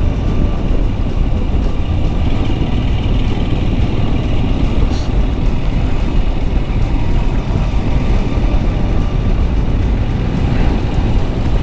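A motorcycle being ridden: engine and road noise as a steady, even rumble with no let-up.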